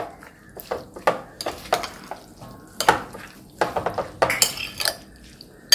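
A steel spoon stirring a wet vegetable mixture in a glass bowl: an uneven run of clinks and scrapes of metal against glass.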